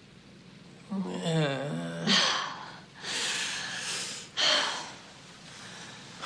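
Heavy breathing during a kiss: a hummed moan about a second in, then three breathy gasps.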